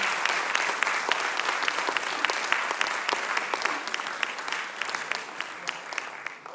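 Audience applauding after a song, a dense patter of hand claps that eases slightly toward the end.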